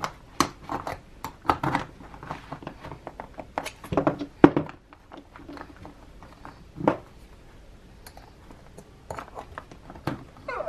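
Irregular small metallic clicks, scrapes and knocks as a screwdriver tip pries at the metal plates of a planner's ring mechanism. The loudest knocks come about four seconds in, and there is a quieter stretch before more clicking near the end.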